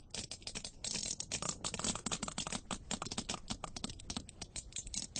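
Sperm whale clicks picked up by a hydrophone: a rapid, uneven series of sharp clicks, many to the second, from a group of whales calling to one another.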